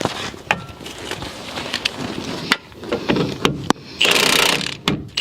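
Socket ratchet wrench working on a stabilizer link bolt: scattered metal clicks and knocks as the 18 mm socket is set on the bolt, then a fast run of ratchet clicking near the end.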